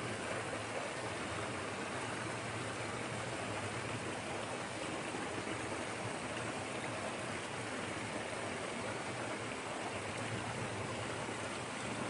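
Small creek waterfall spilling over a log jam into a pool: a steady, even rush of falling and splashing water.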